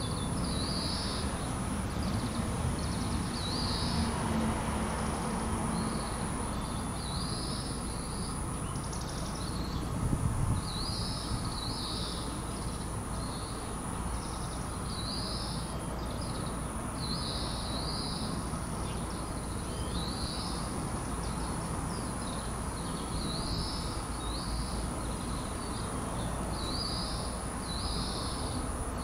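Outdoor summer ambience: a high chirping call repeats about every second and a half over a steady background hum and a constant thin high whine. There is a brief low rumble about a third of the way in.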